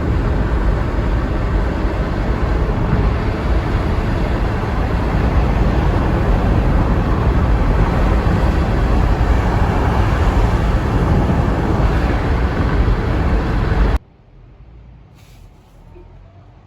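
Loud, steady rumble of a moving vehicle, heaviest in the low end, which cuts off abruptly about 14 seconds in; a much quieter stretch follows.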